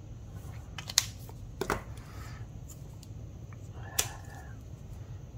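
A few sharp plastic clicks of alcohol marker caps being pulled off and snapped back on as markers are swapped: one about a second in, a quick double just after, and another about four seconds in.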